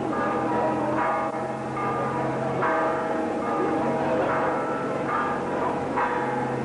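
Church bells ringing, struck again every second or so, each new strike sounding over the ringing of the last.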